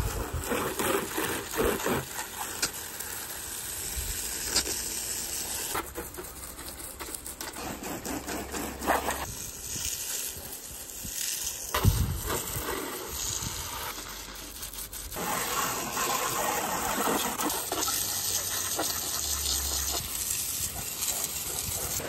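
Water jetting from a pistol-grip garden-hose nozzle onto an ATV's plastic fenders and knobby tyre. The spray gives a steady hiss that shifts in tone several times as the jet moves across different surfaces, with a few sharp knocks along the way.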